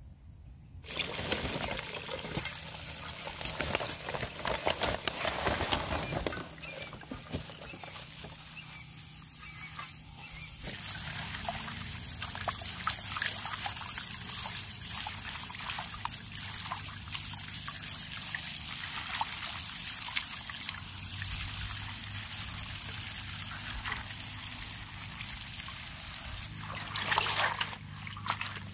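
Hands swishing and rinsing a basinful of leafy greens in water in a metal bowl: water splashing, sloshing and trickling off the leaves. It starts about a second in, with louder splashing in the first few seconds and again near the end.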